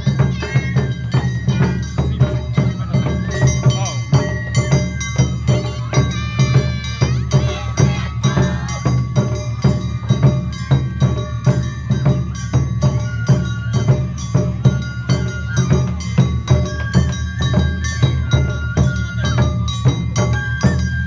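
Live Awa-odori festival music: drums and a clanging bell keep a quick steady beat under a high held melody.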